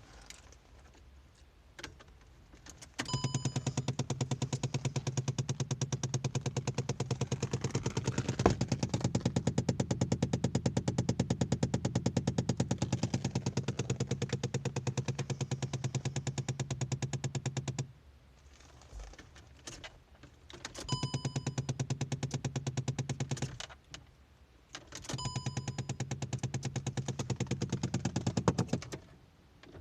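Rapid, steady knocking from under the right side of a Škoda Fabia's dashboard, set off with the ignition on. It starts with a click a few seconds in, runs for about fifteen seconds, stops, then returns twice for a few seconds each.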